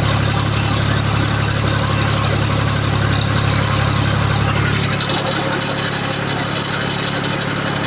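Tractor engine running steadily while dragging a sawlog up a dirt trail.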